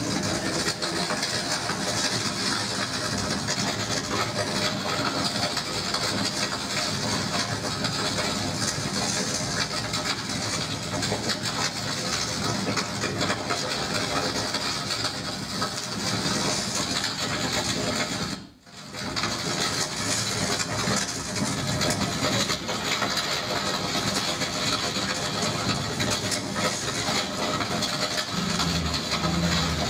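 Live laptop electronic music: a dense, continuous noise texture spread from low to high, with no clear melody or beat. It cuts out abruptly for a moment about two-thirds of the way through, then resumes.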